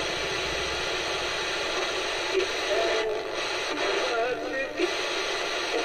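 Sony ICF-C218 clock radio's small built-in speaker playing an FM broadcast through a steady hiss of static, with little bass. From about two seconds in, a song's singing voice comes through the hiss.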